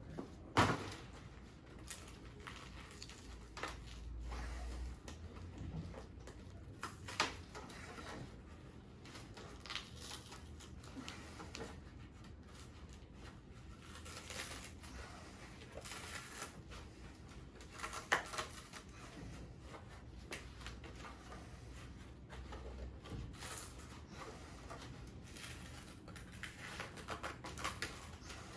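Peel ply being pulled off a cured carbon-fibre layup, with irregular crackling, ripping and scattered clicks as the fabric comes away from the resin, a tough pull.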